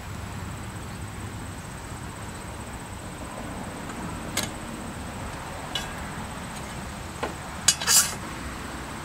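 Metal clinks and knocks from a stainless steel pot and strainer being handled: a few single knocks from about halfway through, then a louder short clatter near the end, over a steady hiss.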